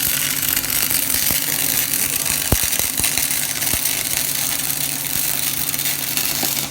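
Arc of a Daihen XD600 wire-feed (CO2/MIG) welder crackling and sizzling steadily over the machine's low hum, with a few sharp spatter pops. The arc stops suddenly near the end.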